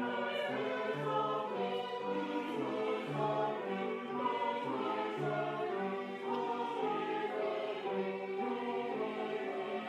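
Church music: a choral or hymn-like piece in steady, evenly paced chords over a recurring bass note.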